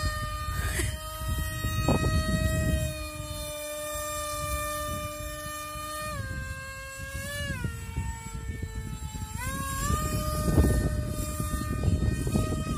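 Electric motor of an RC model plane in flight (a 2217 2700 kV brushless outrunner spinning a 6x4 propeller), giving a steady whine. The whine drops in pitch about six seconds in and again a moment later as the throttle is eased, then climbs back near ten seconds. Gusty wind rumbles on the microphone underneath.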